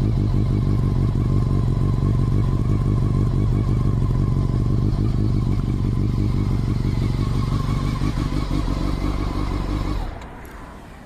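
Honda CBR400RR (NC23) inline-four engine idling steadily through an OVER RACING slip-on silencer, then the sound drops away abruptly about ten seconds in.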